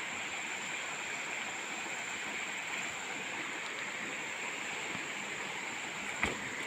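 Steady outdoor background hiss with a constant high-pitched drone running through it, and a single click about six seconds in.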